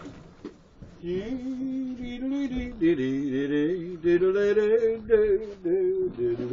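A man singing, holding long notes and sliding between them; it starts about a second in.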